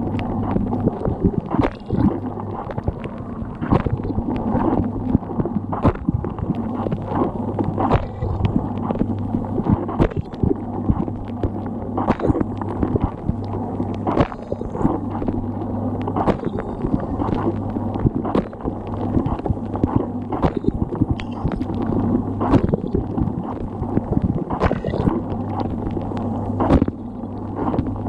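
Dishwasher running, heard from inside the tub: a steady pump hum under churning, gurgling water, with frequent irregular sharp knocks and splashes.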